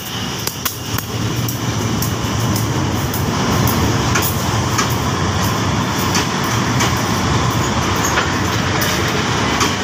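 Passenger coaches of a departing train rolling past on the track, a steady rumble with the wheels clicking and knocking over the rails many times.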